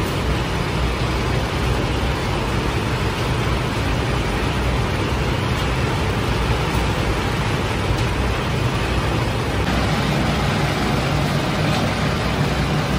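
Steady running noise of bakery machinery: a rotating-tray flatbread oven and a wall extractor fan, a continuous low hum under an even rushing noise.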